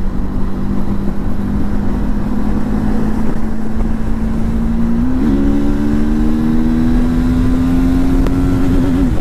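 TVS Apache RTR 310's single-cylinder engine running at highway speed under wind rumble. Its note steps up about five seconds in, then climbs slowly as the bike accelerates.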